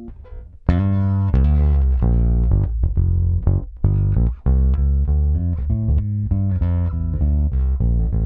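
Japanese-made Fender Jaguar Bass with two Jazz Bass single-coil pickups, played as a run of plucked notes. After a quiet start, a loud note comes in just under a second in, and the notes change quickly, with two short breaks near the middle.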